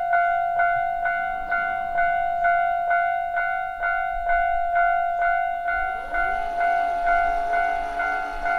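Japanese level-crossing warning bell ringing in a rapid, even clang, about two and a half strikes a second. About six seconds in, a lower rising hum from an approaching train joins it.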